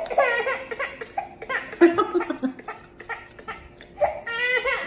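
Laughter mixed with an infant's fussing, and about four seconds in the baby breaks into a high-pitched cry.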